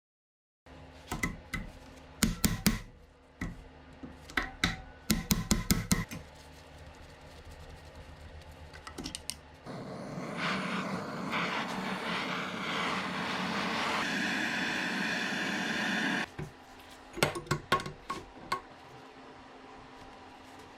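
Workshop sounds of metal parts and tools being handled: bursts of sharp clinks and knocks, with a steady hiss of about six seconds in the middle.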